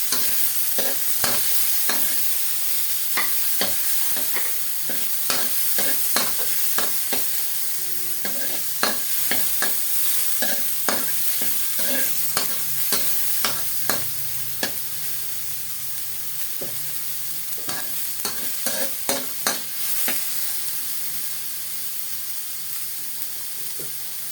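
Oil sizzling in a pan as chopped tomatoes, onions and garlic sauté, with a cooking utensil repeatedly scraping and knocking against the pan as it stirs. The stirring clicks come thick and fast, then thin out over the last few seconds while the sizzle carries on.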